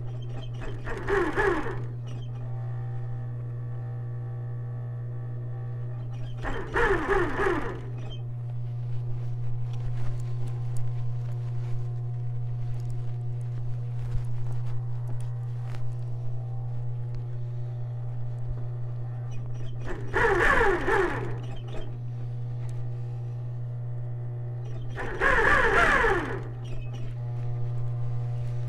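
Industrial sewing machine stitching in four short runs of about a second each, over a steady low hum.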